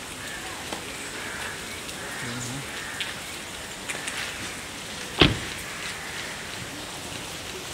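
Steady hiss of light rain with a few faint ticks, and one sharp knock about five seconds in.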